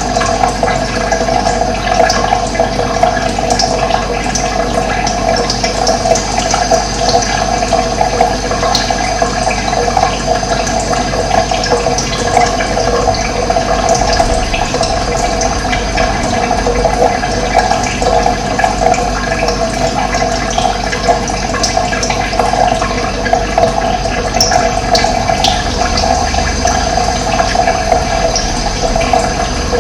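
Running water flowing in a steady, loud rush.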